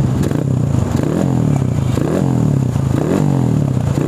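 Kawasaki D-Tracker's single-cylinder four-stroke engine, breathing through its stock muffler with the baffle drilled out, blipped in short throttle bursts about once a second, the pitch rising and falling back to idle each time. The engine has an aftermarket camshaft, which the shop says makes it rev up hard and 'scream' at even a little throttle.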